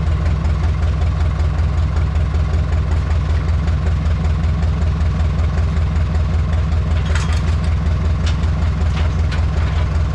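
An engine idling steadily with a low, even pulse. A few light clicks come in about seven seconds in.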